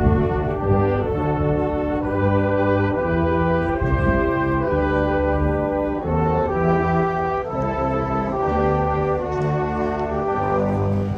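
Brass band playing a slow piece of held, changing chords. A single sharp bang sounds right at the start.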